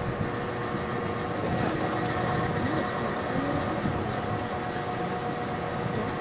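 A steady mechanical hum holding several fixed tones over a constant hiss, with a few faint high clicks about two seconds in.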